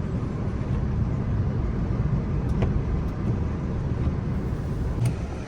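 GAZelle Next van's engine running at low speed, a steady low rumble heard from inside the cab, with a couple of faint clicks.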